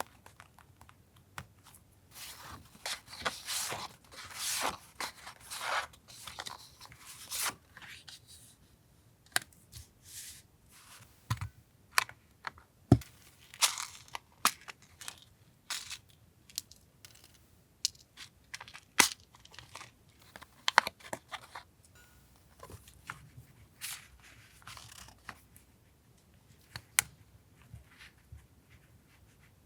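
Paper being handled and torn: rustling and ripping for the first several seconds, then scattered sharp taps and clicks as paper pieces and materials are picked up and set down on a desk.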